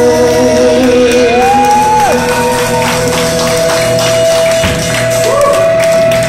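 Live rock band playing loudly on electric guitars and drums. Long held notes ring over repeated cymbal and drum hits.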